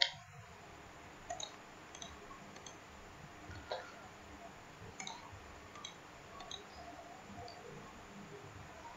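Faint computer mouse clicks, single clicks at irregular intervals, as points are picked while drawing a curve.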